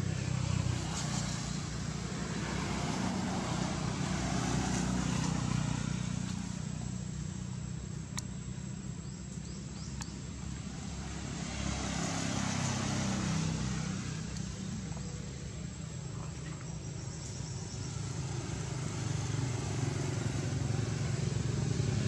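Low motor rumble that swells and fades three times, like motor vehicles passing, with a thin steady high whine over it.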